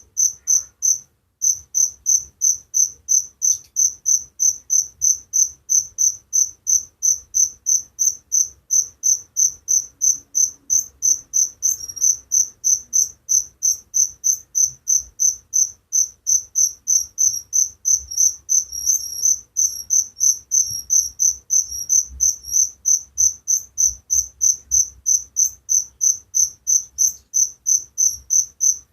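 Cricket chirping, a high-pitched chirp repeating evenly about two to three times a second.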